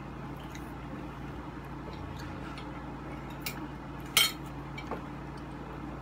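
Spoon and fork clinking against plates, a few light clicks with one sharp clink a little past four seconds in, over a steady low hum.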